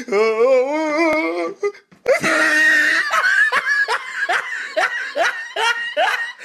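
A person laughing hard: a wavering laugh, then after a short break a run of loud rising laughs, about two or three a second, cut off suddenly near the end.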